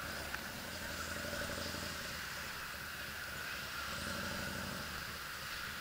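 1973 Suzuki TC125's small two-stroke single-cylinder engine running at low speed as the bike rolls along. The engine note eases off about two seconds in and picks up again about four seconds in.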